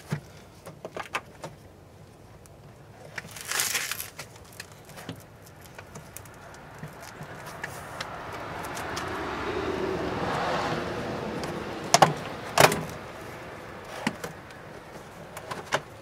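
Plastic clicks and knocks of a BMW E46 door panel being lifted and worked off the door, with two sharp snaps about twelve seconds in. In the middle a rushing noise swells and fades over several seconds.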